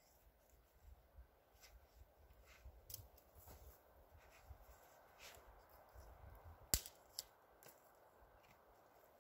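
Near silence with faint scattered clicks and crackles from hands working a wooden stick through a cord loop to tension a poncho ridgeline. One sharper click comes about seven seconds in.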